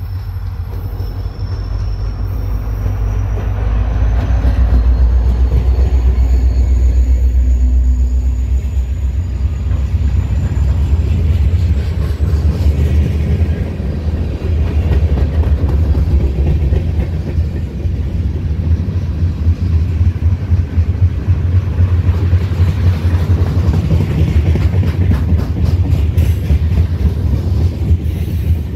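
Diesel-hauled freight train passing close by. The locomotive's engine rumble builds and is loudest for a few seconds about four to eight seconds in as it goes past. Then a long string of tank cars and covered hoppers rolls by with a steady, heavy wheel-on-rail rumble.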